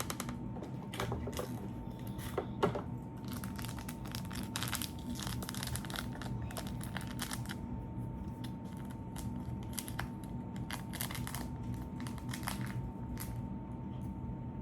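Irregular crinkling and crackling as slime and slime-kit materials are handled and squeezed, with scattered sharp clicks. A faint steady whine runs underneath.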